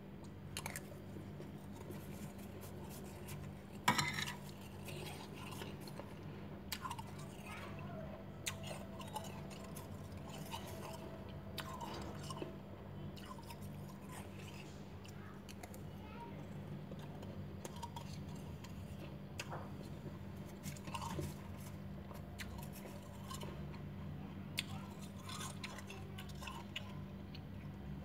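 Soft, scattered crunching of powdery freezer frost, with a sharp click about four seconds in, over a low steady hum.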